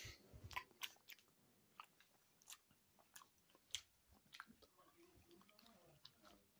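Near silence broken by faint, scattered clicks, about a dozen short ticks spread unevenly over several seconds.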